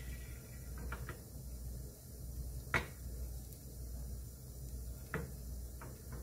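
Rectangular egg-roll pan on the stove over low heat, with a thin layer of beaten egg setting in it: a steady low hum with five sharp clicks of the metal pan being handled, a pair about a second in, the loudest near three seconds and two more after five seconds.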